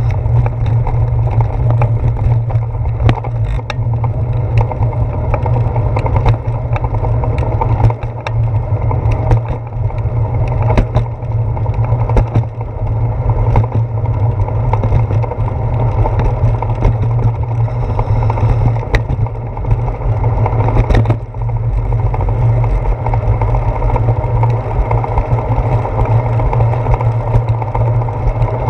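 Bicycle riding over wet pavement, heard through a handlebar-mounted GoPro in its housing: a loud, steady low rumble of wind and road vibration, with frequent small knocks and rattles as the bike goes over bumps.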